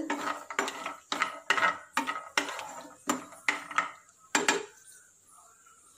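Wooden spatula stirring cashew nuts in ghee in a frying pan: a run of knocks and scrapes against the pan, about two a second, which stops about four and a half seconds in.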